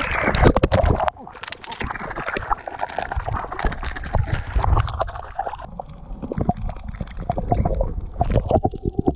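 Water splashing hard against a camera at the surface, then, about a second in, turning muffled as it goes under: gurgling water with scattered knocks and bumps.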